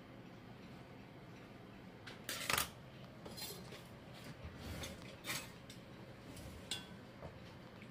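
Metal kitchen utensils clattering and clinking: one loud clatter about two and a half seconds in, then a few lighter clinks, the last ringing briefly.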